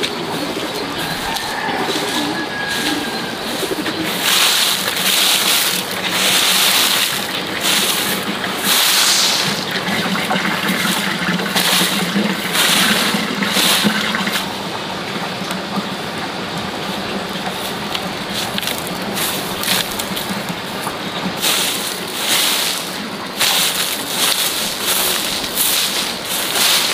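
Soft grass broom sweeping dry leaves and wood shavings across bare dirt ground, in brushing strokes about a second apart, easing off for a few seconds midway.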